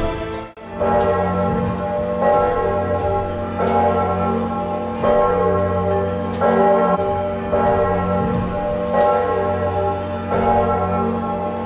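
Large church bells of San Giusto Cathedral's bell tower ringing in a steady peal, a new strike about every second and a half, each leaving a long ringing tone over a deep hum.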